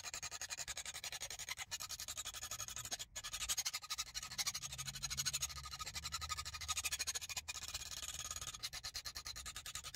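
Hand file rasping across the steel bit of a Gränsfors Bruks Wildlife hatchet in quick, even strokes, filing down a chip in the edge.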